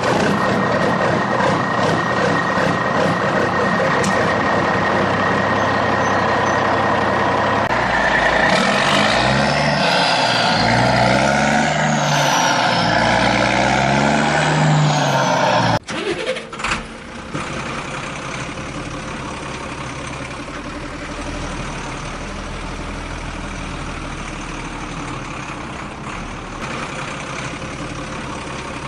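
Truck engine sound effect: a steady engine drone, then repeated revving that rises and falls in pitch. About halfway through it cuts off abruptly, and a quieter steady idling rumble follows.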